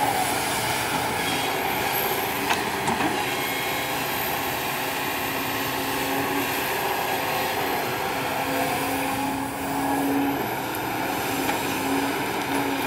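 Kobelco SK200 hydraulic excavator's diesel engine running under load as it digs soil and swings, with a low steady hum that comes and goes with the arm's movements. Two sharp knocks come about two and a half and three seconds in.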